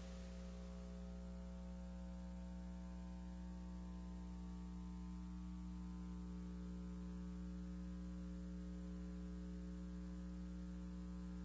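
Faint, steady electrical mains hum with a light hiss, unchanging throughout.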